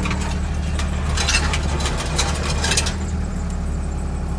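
Toyota Supra's 7M-GE straight-six idling steadily, held in reverse with the clutch down because the broken W58 gearbox is locked in gear. A series of sharp clicks and rattles runs over the first three seconds, then only the steady idle.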